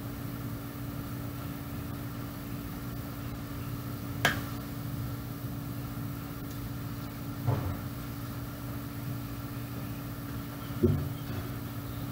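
Steady mechanical hum, with a sharp click about four seconds in and two duller knocks later on.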